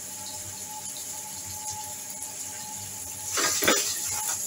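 A spatula stirring and scraping through wet tomato-and-onion masala in an aluminium pot: a quick cluster of scrapes about three seconds in, over a faint steady hiss.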